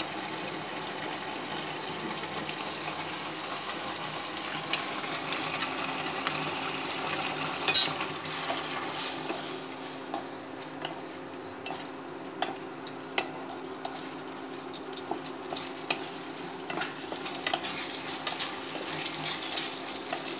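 Sauce-and-vegetable gravy sizzling in a nonstick wok while a wooden spatula stirs and scrapes it, as cornflour slurry is mixed in to thicken it. A sharp clink comes about eight seconds in, with scattered lighter taps against the pan and a faint steady hum underneath.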